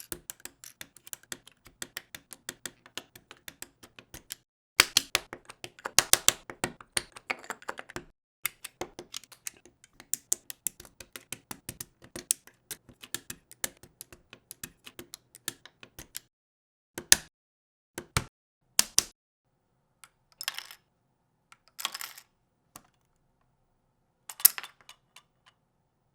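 Plastic LEGO bricks clicking and snapping together in quick runs of sharp clicks, thinning to a few separate clicks and short rattles in the last third.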